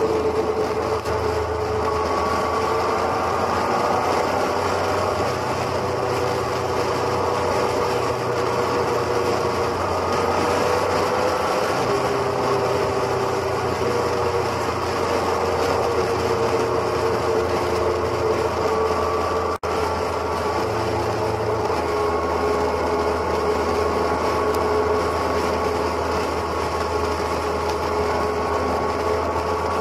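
Motorcycle engine running steadily at highway cruising speed, heard from the bike itself, with wind and road noise and a momentary dropout about twenty seconds in.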